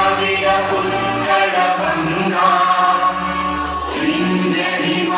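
Music with a group of voices singing, held notes changing every second or so.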